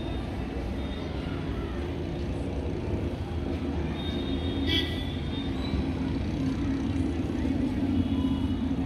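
Steady low rumble of distant city traffic, with one short higher-pitched sound a little past halfway through.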